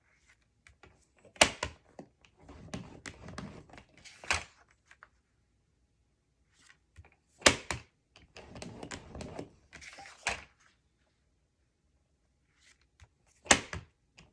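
Cardstock being scored with a scoring tool: a sharp tap about every six seconds as the paper is set or turned, followed by a scratchy scraping as the tool is drawn along the score line.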